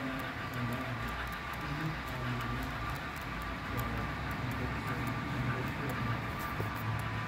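Model Virginia & Truckee steam locomotive with a Soundtraxx Tsunami2 sound decoder running with its train, its chuffs just barely audible over a steady hum and faint ticking.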